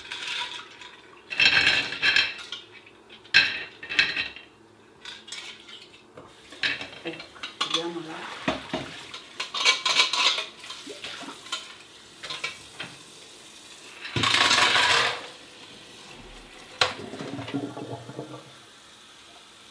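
Clams being washed at a kitchen sink: shells clinking and rattling against each other and against a plate and pot, in irregular bursts of clatter, with a denser rush of noise for about a second near the end.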